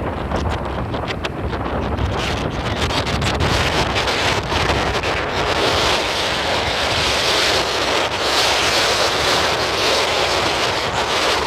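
Wind buffeting the microphone: a dense, steady rushing noise with scattered crackles during the first four seconds. It grows louder after about two seconds.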